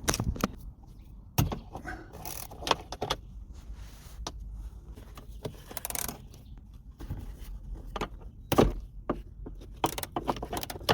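10 mm socket wrench undoing the bolts of a Lada Granta's rear door check strap: scattered sharp metal clicks and clinks at irregular intervals.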